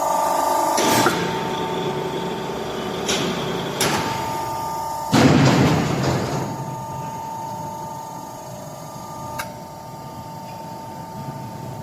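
Y120D hydraulic hose crimping machine running through a crimp cycle: a steady whine with sharp mechanical clicks, and a loud rushing surge about five seconds in that fades over a second or so.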